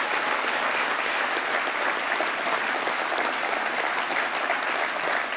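A large conference audience applauding steadily, a dense, even clatter of many hands clapping.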